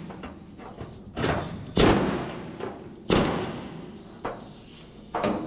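Pneumatic air hammer with a flat chisel bit, run in about five short bursts, the loudest a couple of seconds in, as it chisels the old sheet-steel quarter panel off along its seam. The panel is popping loose from the inner panel.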